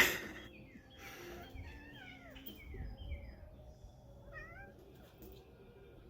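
A cat giving several short, high meows that fall in pitch, after a sharp knock right at the start.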